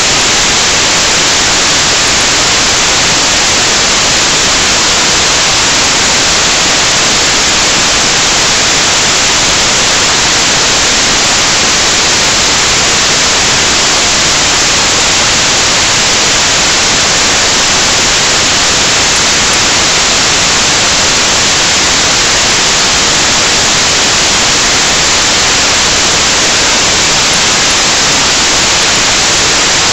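Loud, steady static hiss that does not change: the recording's audio has dropped out into noise instead of sound.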